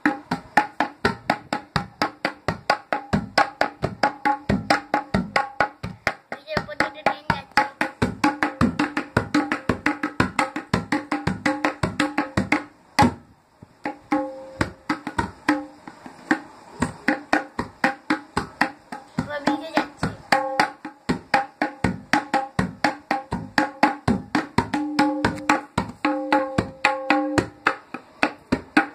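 Tabla played with both hands: a fast, even run of strokes, about five a second, on the ringing dayan and the bass bayan, playing a piece that imitates a running train. There is a short break about halfway through, just after one sharp stroke.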